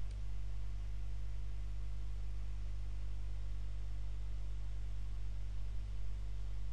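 Steady low electrical hum with a faint hiss, typical of mains hum picked up by the recording microphone chain.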